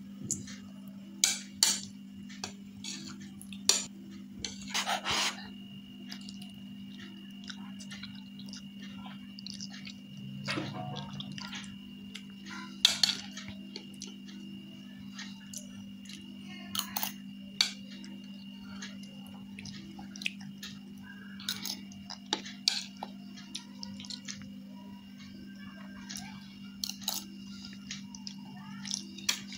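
Metal spoon clinking and scraping against a plate at irregular intervals as a child scoops up instant noodles, over a steady low hum.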